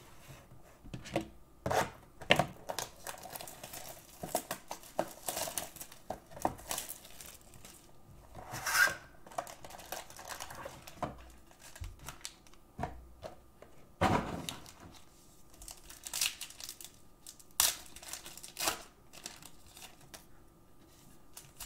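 A cardboard box of Panini Revolution basketball cards being torn open and its foil-wrapped packs crinkling and rustling as they are pulled out and stacked, in irregular crackles with a few louder bursts.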